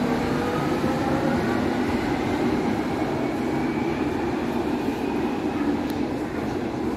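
Berlin U-Bahn train pulling out of the station: a steady rumble of wheels on the track with the electric traction motors' whine rising in pitch as it accelerates, slowly fading as it goes into the tunnel.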